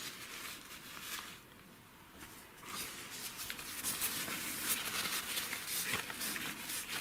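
Faint handling sounds: light, scattered clicks and rustling, sparse for the first couple of seconds and more frequent after that.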